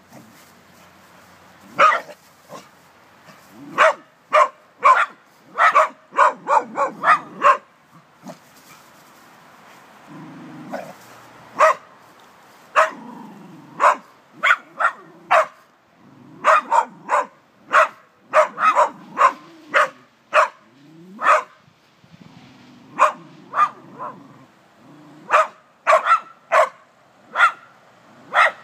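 Small terriers barking repeatedly at a snake, in quick runs of sharp barks broken by short pauses.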